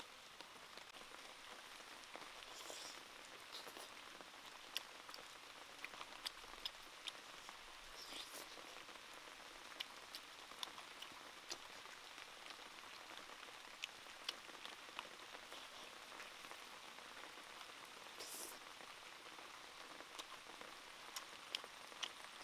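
Light rain pattering on foliage: a faint, steady hiss with scattered sharp ticks.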